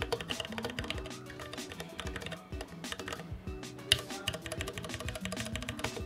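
Fast typing on a Planck 40% mechanical keyboard with Cherry MX Brown switches: keys clacking in quick irregular runs, one stroke louder a little before four seconds in. Background music plays under the typing.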